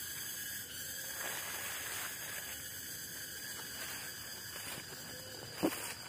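Tropical forest ambience: a steady chorus of insects holding several high, unchanging tones. A single short, low sound stands out about five and a half seconds in.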